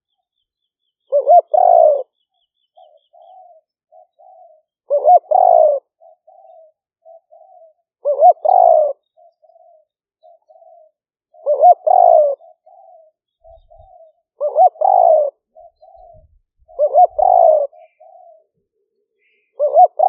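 Spotted dove cooing: a loud coo phrase about every three seconds, seven times, with soft short notes in between.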